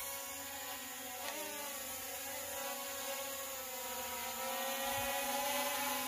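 Small quadcopter drone's propellers whirring in flight: a steady buzz of several tones together, whose pitch wavers briefly about a second in and then holds.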